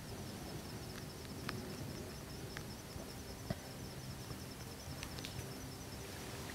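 Quiet woodland ambience: a steady, high, fast-pulsing insect trill, with a few faint ticks and rustles in the leaf litter.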